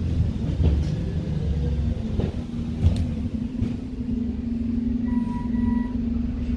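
Sharp pops of a CO2 blowback BB pistol (a Glock 17 Gen 4 replica) firing steel BBs, about four shots spaced unevenly over the first four seconds. Heavy wind rumble on the microphone underneath.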